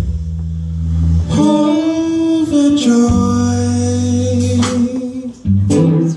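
Live music: a man sings over electric guitar and held low notes, the voice coming in about a second in.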